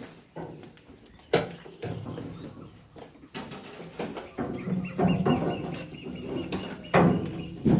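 Farmyard animal sounds: scattered animal and bird calls with sharp knocks, the loudest near the start and again about seven seconds in, and a steady high note held for about two seconds in the middle.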